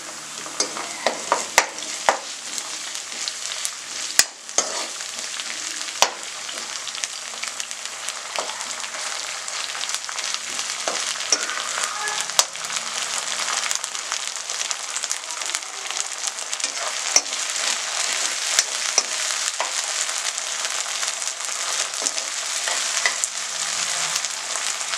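Onions, green chillies and garlic-ginger paste sizzling steadily in oil in a non-stick wok, growing a little louder. A metal spatula scrapes and clicks against the pan as the mix is stirred, most often in the first few seconds.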